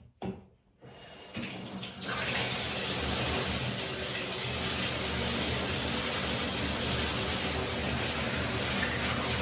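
Bathtub tap turned on and water running steadily into the tub. A brief knock comes first, then the flow starts about a second in and builds to a steady level within another second.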